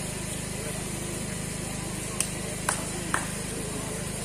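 Volleyball-court ambience: a steady low hum under a crowd murmur, with three sharp knocks about half a second apart around the middle.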